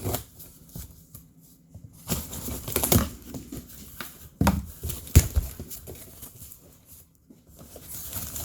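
Packaging crinkling and rustling, with a few sharp knocks, as items are handled and taken out of a cardboard box.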